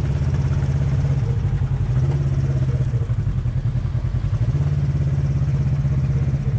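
Quad bike (ATV) engine running steadily at low revs while the quad sits in muddy water.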